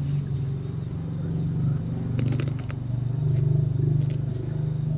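A small engine running steadily with a low, evenly pulsing hum, with a steady high whine of night insects above it and a few faint clicks about two seconds in.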